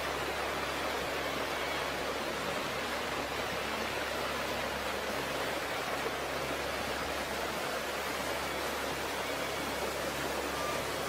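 Steady rushing of floodwater, an even, unbroken noise with no distinct events.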